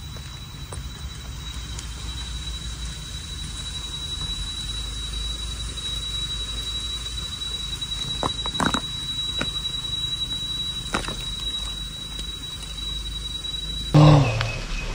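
Forest ambience: a steady high-pitched insect tone over a low rumble and hiss, with a few faint crackles in the dry leaf litter. About a second before the end the tone stops and a louder rustle takes over.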